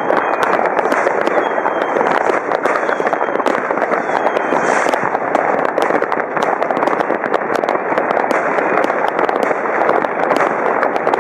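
New Year's Eve fireworks and firecrackers going off all over the city: a dense, unbroken crackle of many bangs and pops, with a few faint whistles of rockets.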